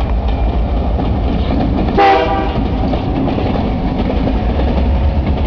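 Freight train led by a GP38-2 diesel locomotive rolling by, a steady low engine rumble with wheels running on the rails. About two seconds in, the locomotive gives one short blast of its horn, the loudest sound here.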